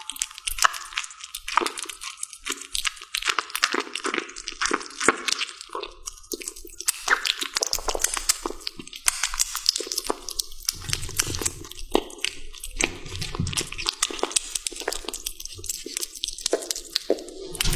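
A kitten eating raw salmon: quick, irregular wet chewing and smacking clicks, several a second.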